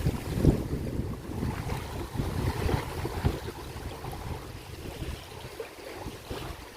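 Waves washing on the shore, with wind buffeting the microphone in low gusts that ease off near the end.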